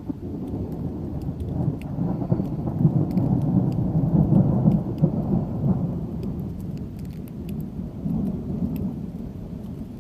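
Rolling thunder: a low rumble that breaks in suddenly, builds over a few seconds to its loudest near the middle, then slowly dies away with a smaller swell near the end. Rain patters underneath.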